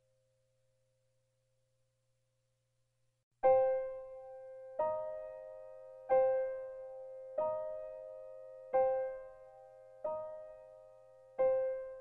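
Background music: soft piano notes struck one at a time, about one every second and a half, each ringing out and fading before the next. The music begins about three seconds in, after near silence.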